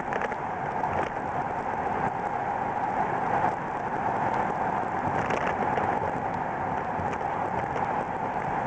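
Steady road and engine noise inside a small car driving through a road tunnel.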